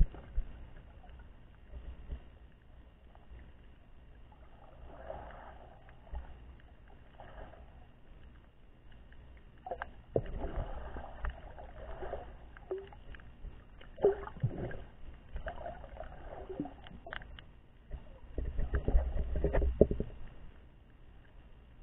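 Muffled underwater water noise from a camera held under water: a low wash with irregular swishes and knocks of water movement, louder in stretches about ten, fourteen and nineteen seconds in.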